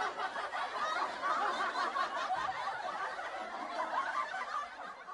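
Crinkling and crackling of a small plastic sachet as it is bitten and pulled at to tear it open.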